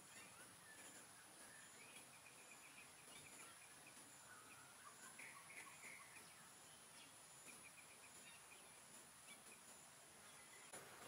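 Near silence: faint forest ambience with a steady high-pitched whine and scattered small chirping calls from birds or insects.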